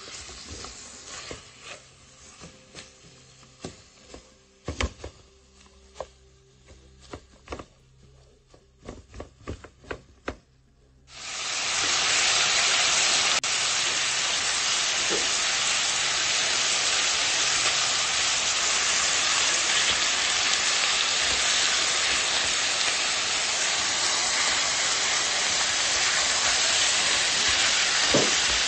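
Chicken pieces frying in oil in a pan. For the first ten seconds the sizzle is light and broken by scattered clicks and scrapes of a plastic spatula against the pan. About eleven seconds in, a loud, steady sizzle starts abruptly and holds.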